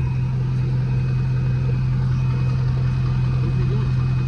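Chevrolet pickup truck engine idling, a steady low drone heard from inside the cab.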